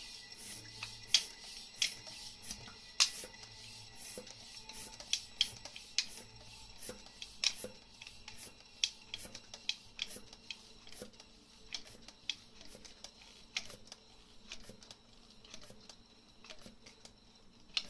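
Music from a small Bluetooth speaker sealed inside a glass jar, growing faint and thin as the air is pumped out of the jar. Sharp clicks come roughly once a second throughout.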